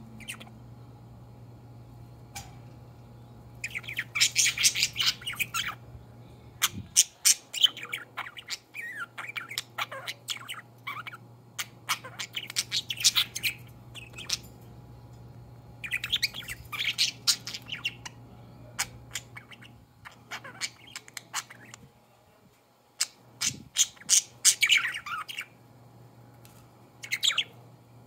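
Budgerigars chattering in several bursts of rapid, high chirps and squawks, with short pauses between bursts.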